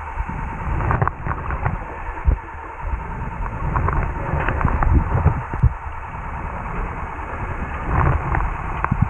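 Muffled underwater noise picked up by a camera in a waterproof housing: a low, uneven rumble of moving water with scattered short knocks.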